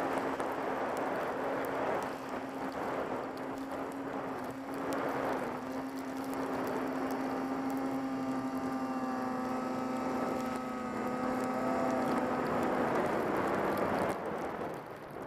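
Arctic Cat mountain snowmobile's two-stroke engine running at a steady pitch while the sled rides through deep powder, with a rushing hiss of snow and wind over it. The engine note eases off near the end.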